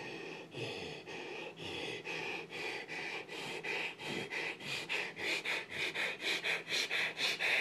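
A dog making rhythmic breathing noises, about two a second at first, speeding up to about four a second and growing louder toward the end.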